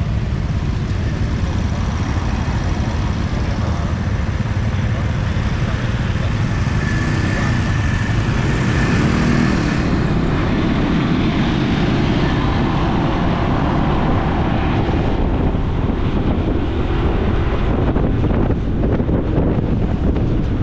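Motor scooter engines and street traffic around a motorbike taxi idling at an intersection, then moving off about halfway through. Wind noise on the microphone mixes in as the ride gets under way.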